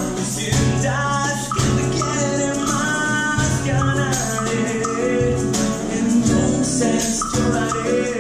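Live music: nylon-string classical guitar playing a bolero-funk groove, with low bass notes changing about once a second under sharp percussive strikes and a man's singing voice.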